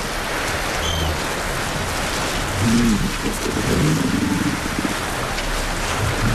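Steady wash of surf on a beach, with low, bending grunts from resting walruses a few seconds in. A brief high chirp sounds about a second in.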